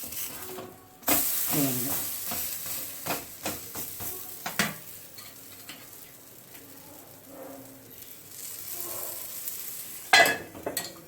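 Rice-and-lentil adai batter frying in oil in a nonstick pan: a steady sizzle that grows louder about a second in, with a few short knocks and one loud clatter near the end.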